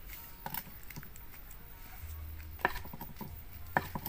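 Light scattered knocks and clicks of cooking utensils being handled, with a faint low hum coming in about halfway.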